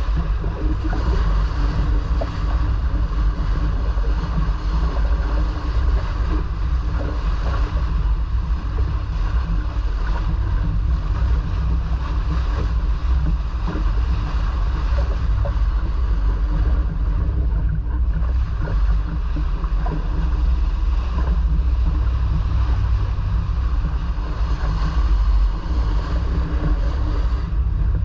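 Wind rumbling steadily on the microphone over water rushing past the hull of a sailboat under way.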